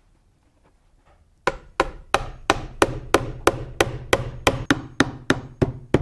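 Hammer driving a nail into a wooden birdhouse: a quick, even run of sharp strikes, about three a second, starting about one and a half seconds in.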